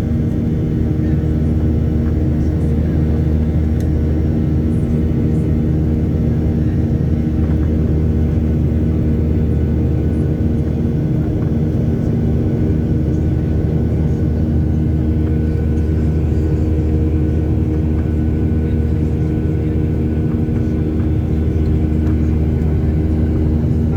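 Airliner cabin noise: the jet engines and airflow give a steady, even drone with a low hum and several fixed tones.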